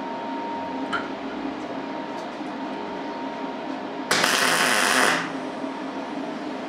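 Electric arc welding: the arc is struck for about a second, a loud burst of arc noise, as a short weld joins a steel washer to a steel rebar rod. A steady machine hum runs underneath.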